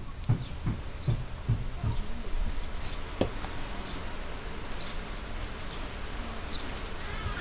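A black Labrador puppy scrabbling and mouthing at a hand on a plastic mesh mat: soft low thumps, about three a second, for the first two seconds, then a sharp click about three seconds in, over a steady faint hiss.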